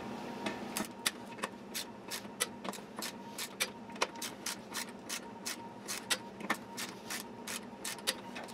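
A torque wrench clicking as it ratchets while the bolts of a beadlock ring are torqued down: a fairly regular train of sharp clicks, about three a second.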